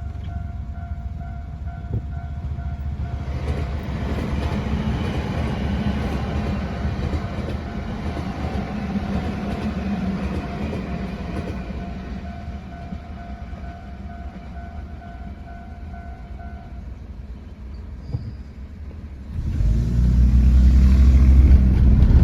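A level-crossing warning bell rings steadily while a Nankai electric train passes through the crossing, its rumble and wheel clatter swelling from a few seconds in and fading out. The bell stops about 17 seconds in. A louder low rumble starts near the end.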